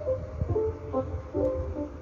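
Music with a plucked-string melody over a low beat, played on an Alpine IDA-X200 car deck.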